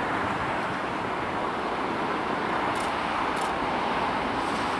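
Steady roar of a jet airliner's engines, holding level without rising or falling.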